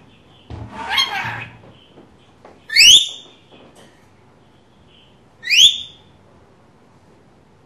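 Pet lorikeet calling: a raspy screech about a second in, then two short, shrill, sharply rising shrieks, one about three seconds in and one about five and a half seconds in, which are the loudest sounds.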